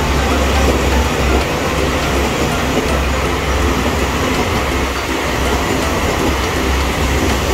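JR Hokkaido KiHa 281 series diesel limited express passing close by: its diesel engines running and its wheels rolling on the rails, a loud, steady rumble.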